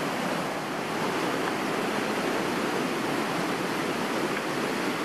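Steady rush of a mountain stream's water running and splashing over rocks below a waterfall.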